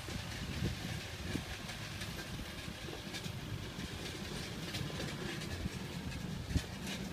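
Distant tractor diesel engine running steadily under load as it pulls a disc plough through the soil, a low even rumble with faint rattling.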